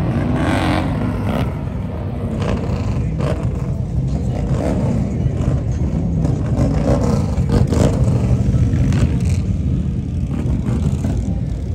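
Motorcycle engines running, a steady low-pitched engine noise with no let-up.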